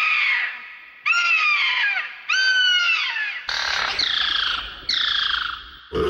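Pterosaur sound effect: five shrill, bird-like screeches in a row, each about a second long and falling in pitch.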